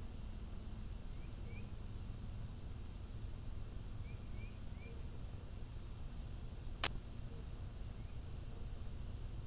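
Steady, high-pitched drone of insects, with a few faint short bird chirps and one sharp click about seven seconds in.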